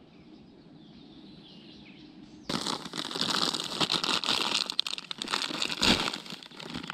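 Plastic bag and a foil groundbait packet crinkling and rustling as hands open and rummage in them, starting suddenly about two and a half seconds in, with a thump near the end. Before that, only faint outdoor background.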